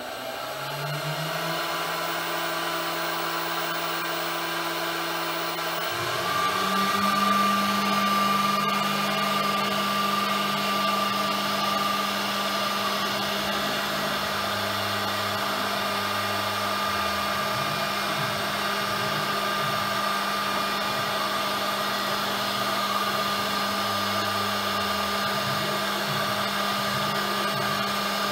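REU1325A CNC router with vacuum table running: a steady machine whine that steps up to a louder, higher tone about six seconds in, under a low hum that pulses on and off as the spindle head travels across the table.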